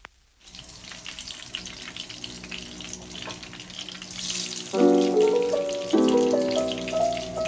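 Patties of batter sizzling and crackling in hot oil in a small nonstick frying pan, starting about half a second in. Piano music comes in about two-thirds of the way through and is louder than the frying.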